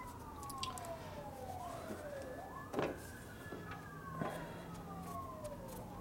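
An emergency-vehicle siren wailing, its pitch sliding slowly down and sweeping back up over and over, with overlapping wails. A sharp click sounds about three seconds in.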